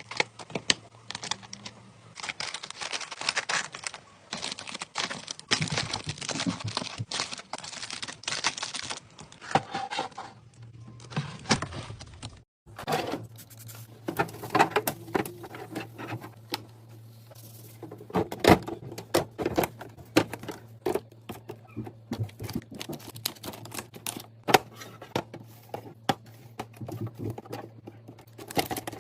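Rapid, irregular clicks and taps of items being handled and set into a refrigerator during restocking, over a faint steady hum. The sound cuts out abruptly about a third of the way in and resumes with the same kind of tapping.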